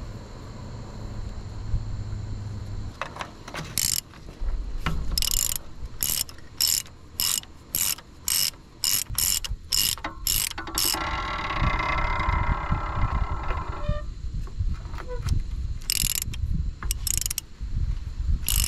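Ratchet wrench clicking in a run of short, even strokes, about two a second, then a steadier mechanical whir for about three seconds, with a few more ratchet strokes near the end.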